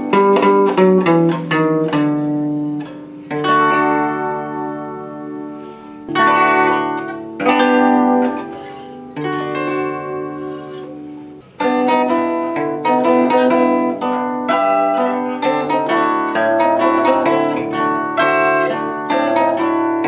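Concert zither played solo: a plucked melody on the fretted strings over bass and chord notes, each note ringing and dying away. The phrases thin out and fade twice, then the playing turns denser and livelier from about halfway.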